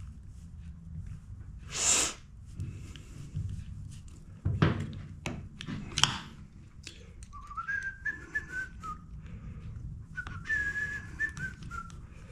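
A person whistling two short, wavering phrases in the second half, each about a second and a half long. Sharp clicks and taps of small tools and chainsaw parts being handled come before them, the loudest near the middle, with a brief hiss about two seconds in.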